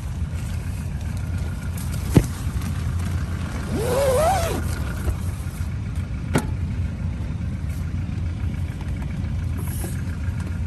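Steady low engine rumble, with two sharp knocks and a short pitched sound that wavers up and down about four seconds in.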